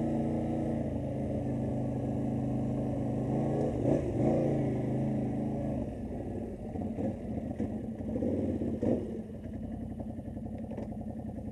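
Quad bike (ATV) engine idling with a steady note, briefly revved about four seconds in. After about six seconds the steady note falls away and it runs quieter and rougher, with a few knocks.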